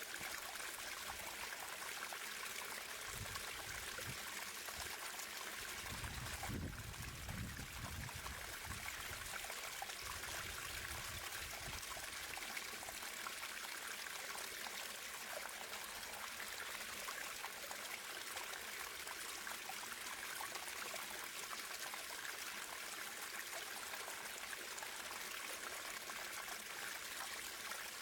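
Water running steadily over rocks in a stream, a continuous trickling and splashing, with a brief low rumble a few seconds in.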